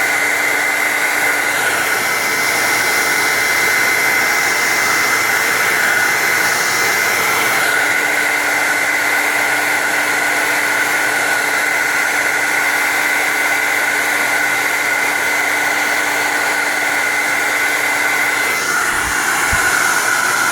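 Hand-held blow dryer running steadily on its cool setting: a loud, even rush of air with a high whine. It switches off at the very end.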